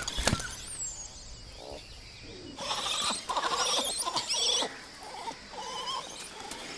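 Monkeys calling: a run of shrill calls about two and a half seconds in, lasting around two seconds, then a few shorter calls.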